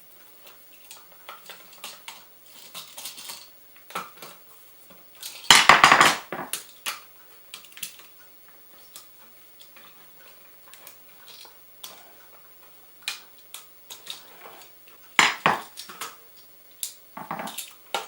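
Scattered metallic clicks and clinks of a duplex receptacle and its copper wires being handled as the wires are twisted out of the stab-in (backstab) terminals. The loudest clatter comes about six seconds in, with another about fifteen seconds in.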